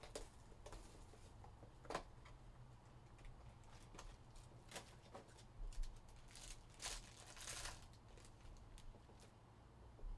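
Faint crinkling of a trading-card pack's wrapper being torn open and handled, with soft clicks and rustles of cards being flipped. The longest crinkle comes about seven seconds in.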